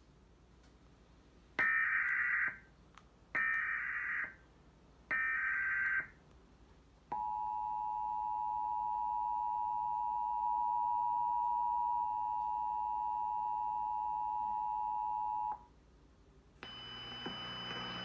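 Emergency Alert System header played through a television's speakers: three short bursts of screeching digital data (the SAME header), then the steady two-tone EAS attention signal held for about eight seconds. Just before the end a noisier sound with several steady tones comes in.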